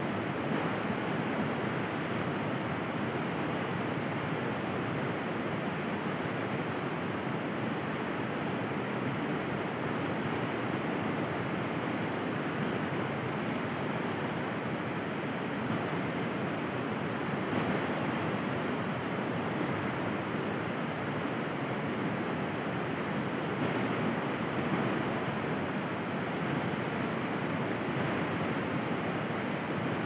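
Flowing river water: a steady, even rush of water.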